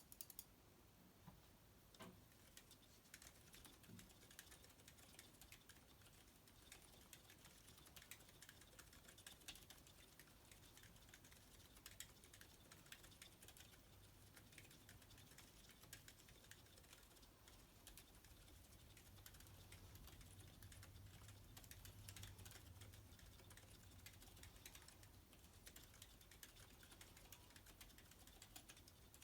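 Quiet, continuous typing on a split mechanical keyboard with Cherry MX Silent Red switches, lubed and filmed, under PBT keycaps: a steady stream of soft, damped keystrokes with a shuffley switch noise.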